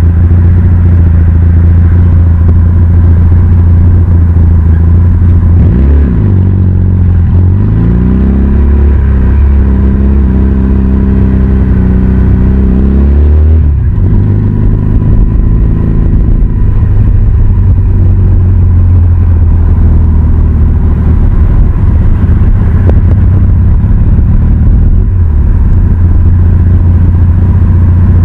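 Cruiser-style motorcycle engine running loud and low. About six seconds in it dips, then climbs as the bike pulls away, holds a steady higher note for several seconds, and falls back suddenly about halfway through.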